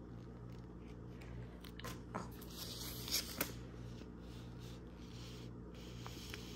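Sticker sheets and their packaging being handled: a few soft crinkles and taps, mostly about two and three seconds in, over a steady low hum.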